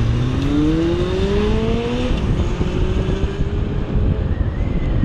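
Yamaha R1 inline-four engine accelerating, its pitch rising steadily for about two seconds, then rising again more slowly after a gear change. Under it runs a heavy low rumble of wind on the microphone.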